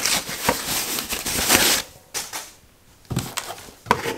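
Foam packing sheet crinkling and rustling as it is unwrapped from a plastic alarm siren cover. It stops for about a second midway, then comes back as lighter crackles with one sharp click near the end.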